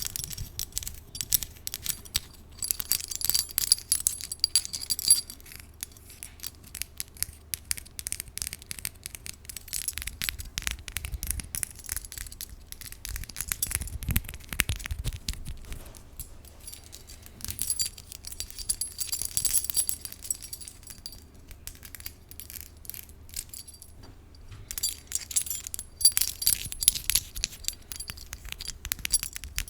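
A metal key being tapped and scratched with long fingernails: a dense run of small clicks and scrapes, with three stretches of bright metallic jingling.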